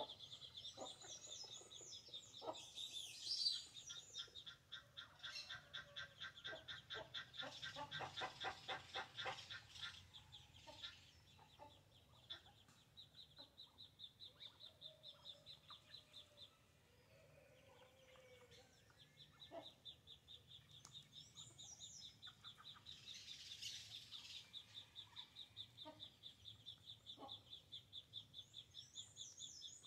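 Hens clucking quietly as they feed, with a run of quick rhythmic clucks in the first third, over a steady high chirping trill that stops for a moment past the middle.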